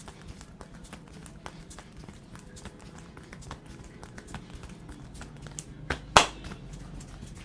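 Hands tapping and patting quickly and irregularly on a head and neck during a barber's head massage. One much louder sharp smack comes about six seconds in.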